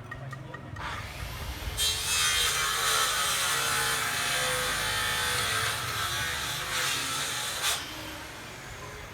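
A handheld power tool cutting for about six seconds. Its motor pitch sags under load and recovers, and it stops suddenly near the end.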